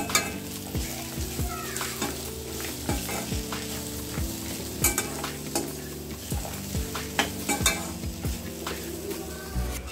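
Steel spatula stirring curry leaves and grated coconut in a stainless steel kadai, clinking and scraping against the pan at an irregular pace over a light sizzle of frying.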